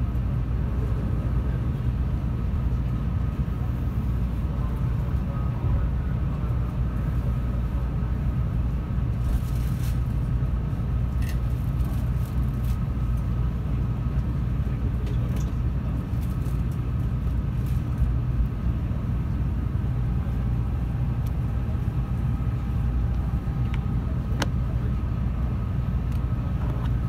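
Steady low hum inside a 700 Series Rail Star Shinkansen car standing at a station, with a faint steady tone and a few light clicks.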